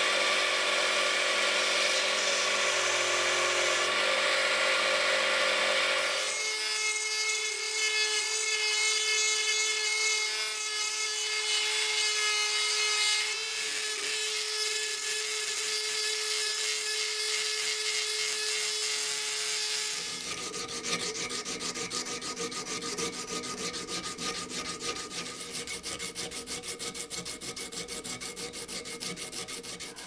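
Belt grinder running as a small flat steel knife spring is ground against the belt. About six seconds in this gives way to a rotary tool with a white felt polishing bob buffing the spring, its motor holding a steady tone. For the last ten seconds there is a different, rapid rhythmic rasping.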